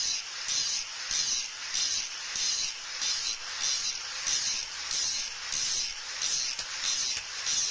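Angle grinder with a wire wheel scouring rust and scale off a rusted leaf-spring steel blade: a hissing rasp that swells about two or three times a second as the wheel is worked back and forth along the steel.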